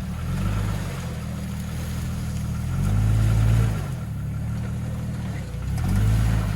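Off-road 4x4's engine running at low revs as it crawls over an obstacle, the throttle pressed in three short surges, the loudest about halfway through.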